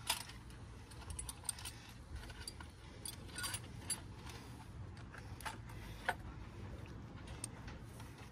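Faint, scattered metallic clicks and clinks of an Allen key being fitted and turned on a bolt in a car's engine bay, over a low steady rumble.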